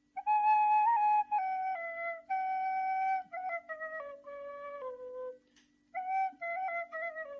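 Nay, an end-blown reed flute, playing a slow melody of held notes that steps downward in pitch, with a short break about five and a half seconds in before a new phrase starts.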